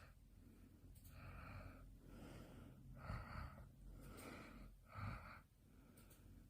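Dog snoring in its sleep: a run of five short, faint breaths about one a second, each with a slight whistle.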